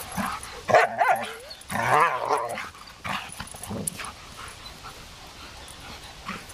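Two dogs play-wrestling, with short bursts of dog vocalizing. The loudest burst comes about two seconds in, and it is quieter after about three seconds.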